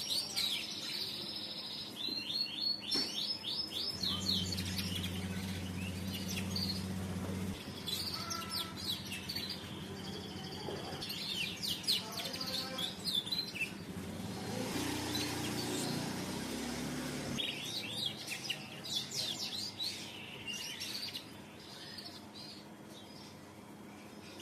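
F1 canary singing in rapid trills, fast runs of repeated high notes with short pauses between phrases. A low droning sound comes up twice in the background.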